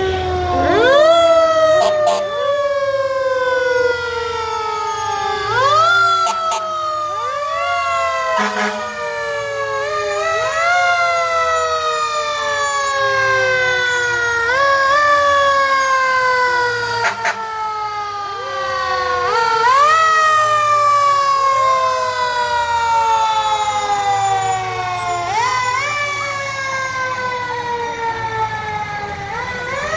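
Fire truck's mechanical siren, repeatedly wound up quickly and left to coast slowly down in pitch, again and again every couple of seconds, loud, over the truck's engine running.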